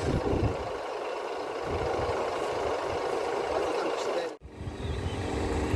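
Wind buffeting the microphone in gusts over a mechanical hum. The sound cuts out for a split second about four seconds in, and a steady droning hum with even tones carries on under the wind after it.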